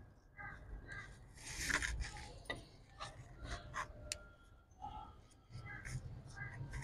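Roti dough being handled by hand on a round board: scraping and rubbing of floury dough, with scattered light knocks and taps as it is pressed flat.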